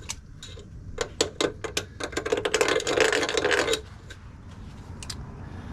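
Hand deburring tool scraping around the edge of a hole in metal to clean off the burrs: a run of separate scraping clicks, then a steady rasping scrape that stops about four seconds in.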